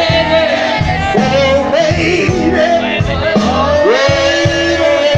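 Live blues band playing, with a bending lead melody over a walking bass line.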